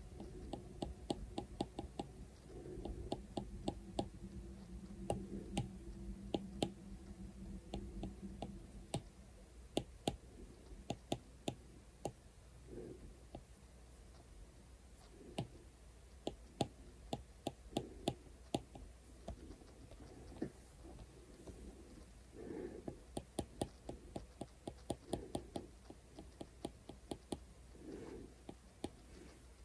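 Apple Pencil tip tapping and stroking on an iPad's glass screen: irregular sharp clicks, several a second, in clusters with short pauses. A faint low hum runs under the first several seconds and stops about nine seconds in.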